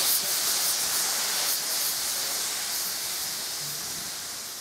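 Steam hissing steadily from an LMS Stanier Class 5 'Black Five' steam locomotive, gradually fading.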